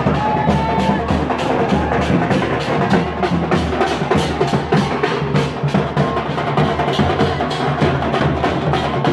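Loud drumming: drums beaten in a fast, steady rhythm, about four strokes a second, with the sharp clacking strokes of the beat running on without a break.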